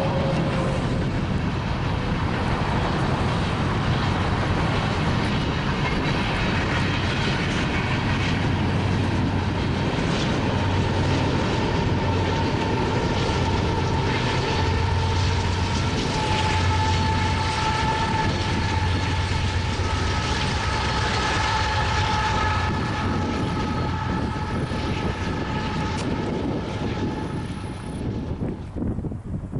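Loaded coal train's hopper cars rolling past, a steady rumble and rail clatter. Thin high-pitched ringing tones run over it for several seconds midway. The sound drops away near the end.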